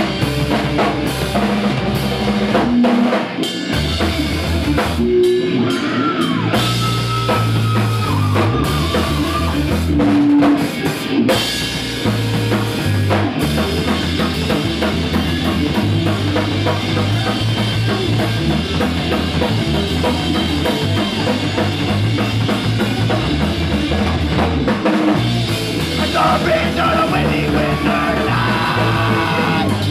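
Live punk rock band playing loud: a full drum kit with bass drum, over a bass line that steps between notes.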